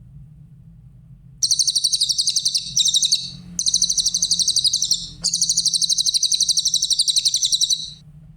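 Cililin songbird singing long, very rapid, high-pitched trills in several phrases with brief breaks. It starts about a second and a half in and stops shortly before the end, over a faint steady low hum.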